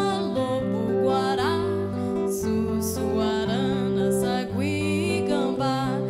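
Live band music with acoustic guitar, long held bass notes, and a woman singing a slow melody.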